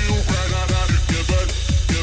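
Electronic dance music soundtrack with a fast, steady beat, about four strokes a second, and bass notes that slide downward on each stroke.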